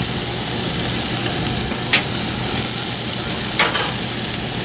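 Barbecue-sauced chicken sizzling over glowing lump charcoal on direct heat, a steady hiss with two brief crackles, about two seconds in and again near three and a half seconds.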